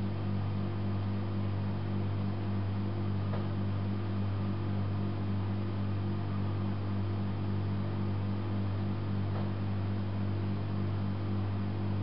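A steady low hum with a faint hiss, even and unchanging, like a small motor or appliance running or mains hum; a couple of faint soft ticks come through.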